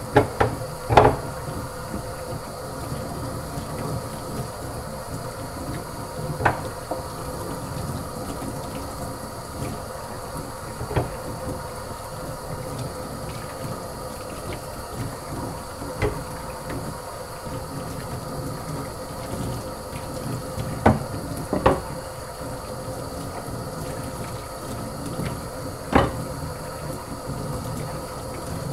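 Tap water running steadily into a sink as wooden spatulas are rinsed under it, with occasional sharp knocks as the wooden utensils are handled, about eight over the stretch.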